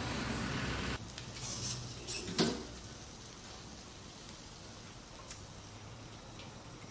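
A few light knocks and clatters of kitchen items being handled, then quiet room tone with one faint click. A steady background noise cuts off about a second in.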